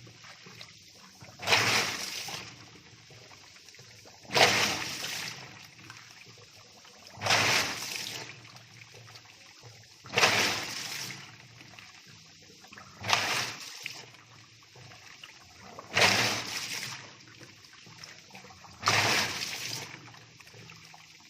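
Toshiba 10 kg top-loading automatic washing machine agitating its tub of water during a tub-cleaning cycle: a sloshing surge of water about every three seconds, each starting sharply and fading over about a second.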